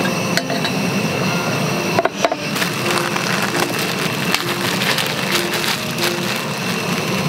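Water at a rolling boil bubbling in an aluminium pot, with a sharp metal clank about two seconds in as the pot lid comes off. Background music plays underneath.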